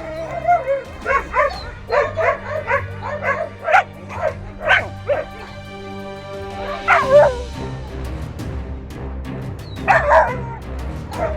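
West Siberian Laika barking in short, high yelps: a quick run through the first five seconds, then single bursts about seven and ten seconds in. Background music plays underneath.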